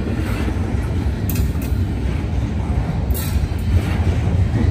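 Norfolk Southern double-stack intermodal freight train rolling past: a steady low rumble of the cars on the rails, with a few sharp clicks, twice in quick succession about a second in and once again near the middle.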